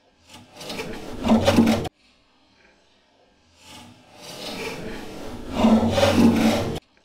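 N-scale model train coaches rolling over track on a wooden layout: a rough rubbing rumble with a low hum underneath. It swells twice and cuts off sharply each time.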